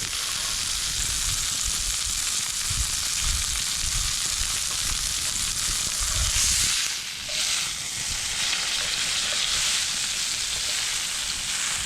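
A steak frying in a pan over campfire coals, a steady sizzling hiss.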